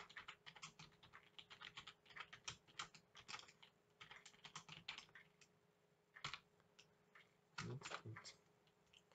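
Typing on a computer keyboard: quick, faint runs of keystrokes that stop about five seconds in, followed by a single keystroke a second later.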